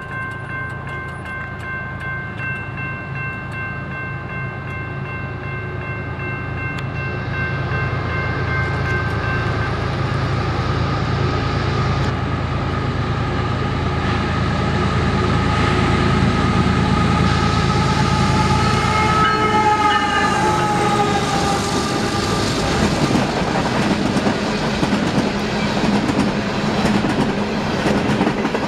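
A CSX coal train of empty hoppers drawn by diesel locomotives approaches and passes, growing louder; the locomotives' tones drop in pitch as they go by about two-thirds of the way in, followed by the steady rattle and clack of the empty coal cars rolling past.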